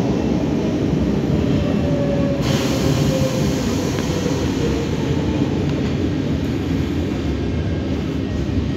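MIVB metro train heard from inside the carriage, its wheels on the track making a steady, loud rumble in the tunnel. A faint whine falls in pitch as the train slows into a station.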